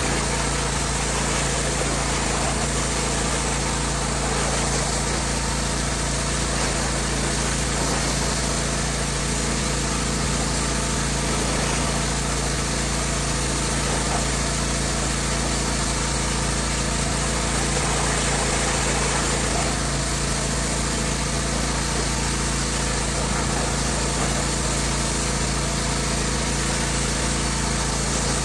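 Gas-engine pressure washer running steadily under load, its high-pressure water jet hissing against vinyl siding.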